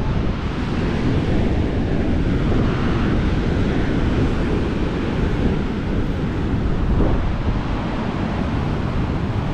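Wind blowing across the microphone, mixed with heavy surf breaking against the foot of a sea cliff: a steady rushing noise throughout.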